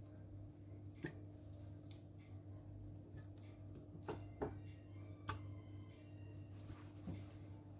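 Pieces of raw lamb set by hand into an oiled stainless steel pressure cooker pot, giving a few faint, soft knocks against the steel, over a steady low hum.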